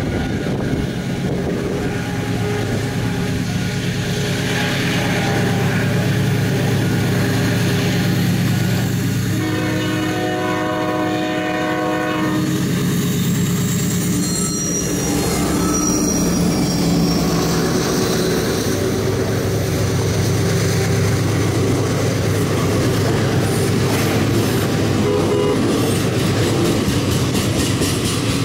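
Diesel freight locomotive running as it draws near and passes, growing louder over the first few seconds, with one long horn blast of about three seconds some nine seconds in. After it, the string of open freight wagons rolls by, wheels clacking over the rail joints, with a brief high wheel squeal.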